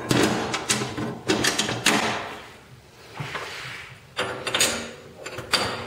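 Metal lathe parts being handled and adjusted with the spindle stopped: a run of metal clicks and clunks, with a short scraping slide a little past the middle.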